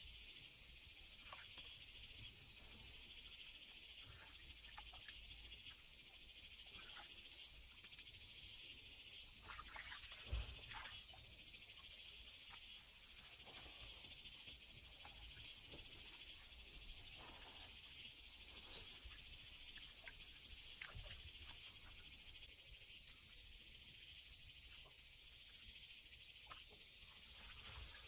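Insects singing in a steady, high-pitched chorus, with one call pulsing about every one and a half seconds. A few faint knocks sound through it, the clearest about ten seconds in.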